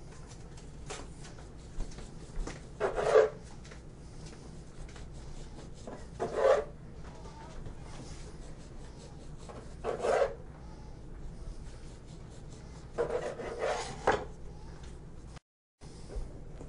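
A knife saws through a rolled cinnamon-roll dough log on a wooden table in four short bursts, about three to four seconds apart.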